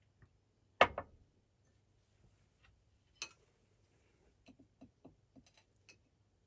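A sharp, loud knock about a second in, followed quickly by a second knock, then a single click and a run of faint light taps and ticks of something being handled.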